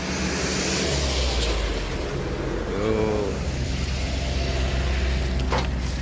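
Road traffic: a car passing along the main road, its noise swelling over the first second or so over a steady low rumble.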